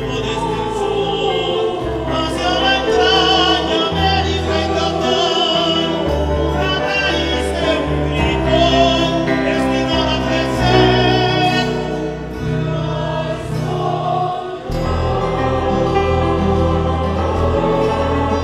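A mixed choir singing with an Andean folk ensemble. Small strummed stringed instruments, charango and tiple, play over sustained low bass notes.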